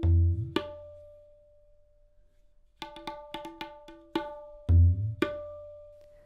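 Tabla played solo. A deep, booming bass stroke on the bayan (left-hand drum) is joined by the dayan's clear ringing tone, which is left to sustain. About three seconds in comes a quick run of crisp dayan strokes, then a second deep bayan stroke with more ringing strokes near the end.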